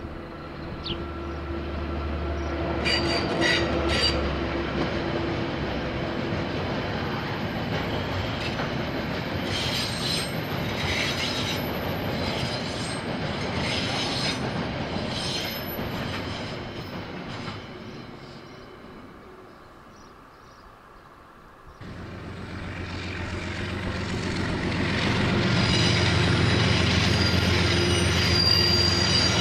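Freight train of container wagons rolling past, wheels squealing in high tones with clicks over the rail joints. About three quarters of the way through the sound cuts to a KiwiRail diesel locomotive approaching, a steady low engine drone with squealing wheels over it.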